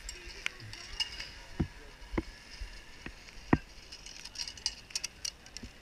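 Metal zip-line pulley trolley clinking and clicking as it is handled: several sharp separate clicks, the loudest about three and a half seconds in, then a quick run of lighter clinks about a second later.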